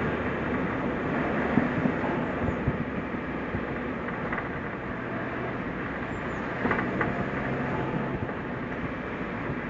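New-model Suzuki Jimny climbing a forest road: steady engine drone and road noise, with a few short knocks and rattles about two seconds in and again past the middle.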